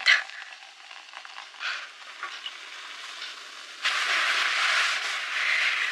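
Food sizzling in a hot frying pan. A faint hiss gives way about four seconds in to loud, steady sizzling.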